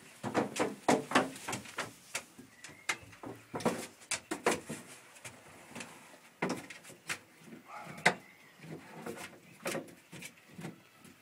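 Dog chewing on a white chew bone: irregular clicks and knocks from teeth on the bone, some in quick clusters.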